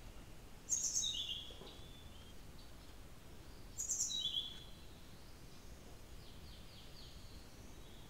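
Blue-throated flycatcher singing two short high phrases about three seconds apart, each a sharp high note dropping into a lower sweet trill, then a few faint quick notes near the end, over a steady hiss.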